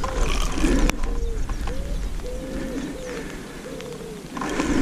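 A pigeon cooing over and over in a run of low, soft, arched notes, each about half a second long.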